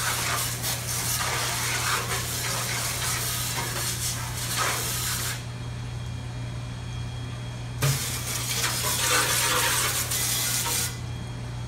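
Water jetting from a hand-held hose spray nozzle into an emptied stainless-steel deep-fryer vat, blasting heavy debris from between the burner tubes toward the drain. The spray hisses for about five seconds, stops for about two, then runs again for about three seconds, over a steady low hum.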